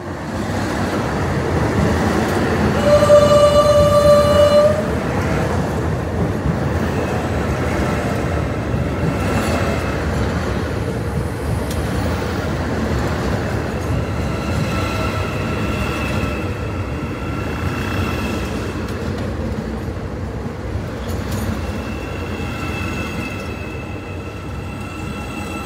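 Hyundai Rotem HRCS2 electric trainset running past close by, a steady rumble and rattle of wheels on rail. One horn blast about two seconds long sounds about three seconds in. A faint high whine joins in the second half as the rumble slowly fades.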